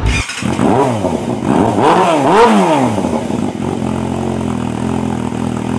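Motorcycle engine revved several times, its pitch climbing and falling with each blip, then holding a steady note for the last couple of seconds.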